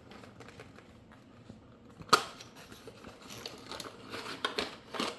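Unboxing handling noise: packaging being handled with light rustling and small clicks, and one sharp click about two seconds in.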